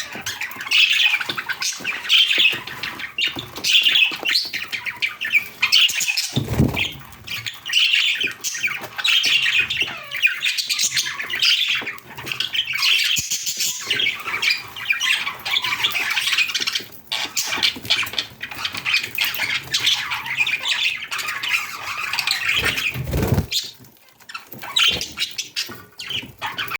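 Several budgerigars (budgies) chattering, their calls overlapping with hardly a break. A low thump comes twice.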